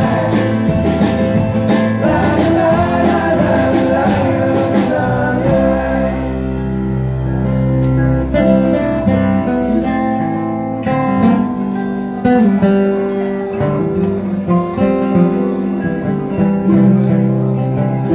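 Live acoustic folk band playing: strummed acoustic guitars, mandolin and upright bass, with voices singing over them at first. About five seconds in the sound thins to separate picked notes over long low bass notes.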